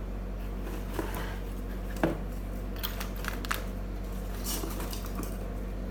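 Light clicks, taps and rustles of satellite LNBs and their packaging being handled, with a sharper knock about two seconds in, over a steady low electrical hum.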